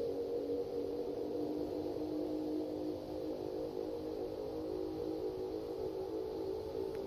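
A deep, steady humming drone made of several overlapping tones, the unexplained 'trumpet in the sky' sound. About two to three seconds in, the strongest tone drops lower and the chord shifts slightly.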